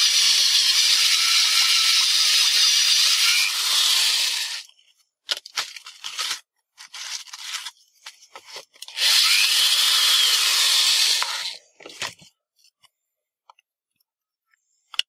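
Electric drill spinning a step cone drill bit to widen a hole in a thin panel, in two bursts of cutting noise, the first about four and a half seconds long and the second about two and a half, with short scraping and handling noises between them. A sharp click comes near the end.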